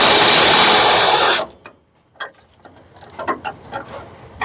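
Air ratchet running on a shackle bolt in a steady hissing buzz that cuts off about a second and a half in, followed by light clicks and knocks of tools and metal parts.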